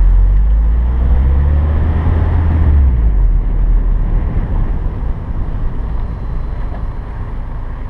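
Car driving slowly, a deep rumble of engine and road noise mixed with wind buffeting a camera microphone mounted over the hood; the heavy low rumble eases off about three seconds in and settles to a quieter steady rumble.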